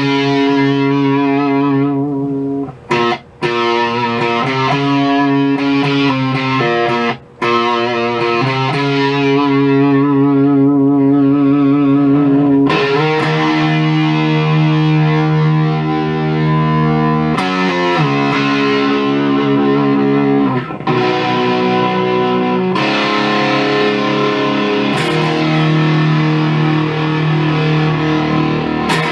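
Electric guitar played through a Maestro FZ-1A fuzz pedal clone, giving a heavily distorted, buzzing tone. Sustained fuzzed notes and chords are held and changed several times, with a wavering vibrato on the notes in the first half and brief breaks in the playing near 3 and 7 seconds in.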